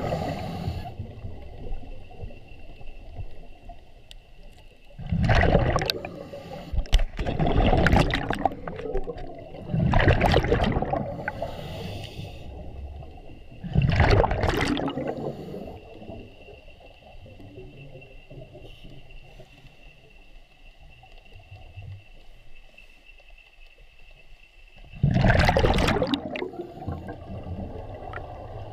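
Underwater water noise picked up through a camera housing: six loud bursts of about a second each, several seconds apart, with a long lull before the last one near the end, over a faint steady high tone.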